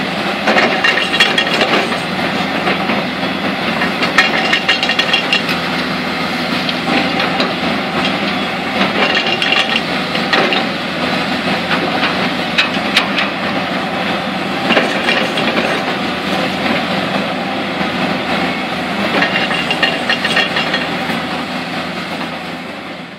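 XCMG XE700C large hydraulic excavator ripping rock with a single-shank ripper tooth. Its diesel engine runs steadily under load, with repeated bouts of grinding, cracking rock and metal clanks as the tooth tears through.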